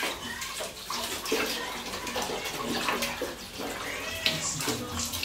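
Water from a tap pouring steadily into a plastic bucket, with irregular splashes as a dog drinks from it and dips its muzzle and paw into the water.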